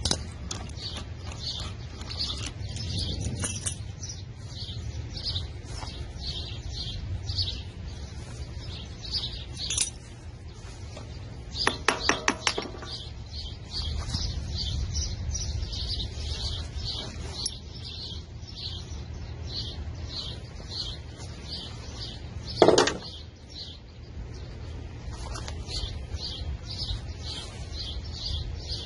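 Short high chirps repeating steadily, about two to three a second, over a low steady hum. A quick run of sharp clicks comes about twelve seconds in, and a single loud sharp knock, the loudest sound, comes about two-thirds of the way through, as hand work goes on at a small V-twin engine.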